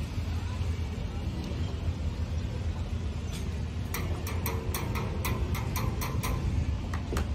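A steady low rumble, with a run of about ten sharp knocks, roughly three a second, in the second half.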